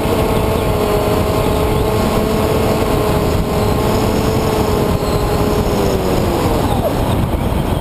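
Onboard sound of an EPP foam model plane's motor and propeller: a steady whine that glides down in pitch and fades about six to seven seconds in as the throttle is pulled back, over heavy wind rush on the microphone.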